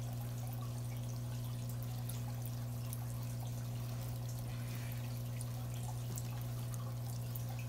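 Water trickling and dripping in an aquarium tub with a sponge filter, over a steady low hum. Faint small ticks, like bubbles or drops, are scattered through it.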